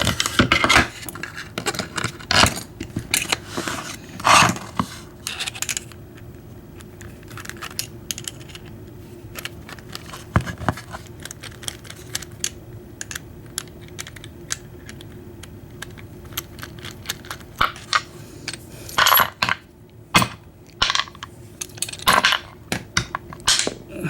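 Metal parts of an American 700 padlock being taken apart by hand, with sharp clicks and clinks as small pieces drop onto a hard surface. The clicking comes in dense clusters, thins out in the middle stretch, then picks up again near the end.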